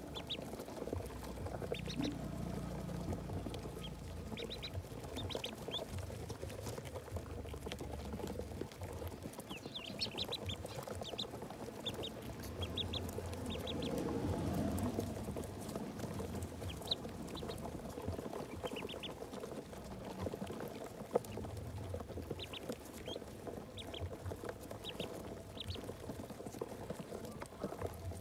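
A brood of ducklings peeping: short, high cheeps come in scattered little clusters over a low steady background hum.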